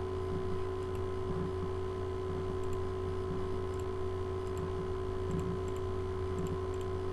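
Computer mouse button clicks, faint and sharp, coming every second or so and often in close pairs, over a steady low electrical hum.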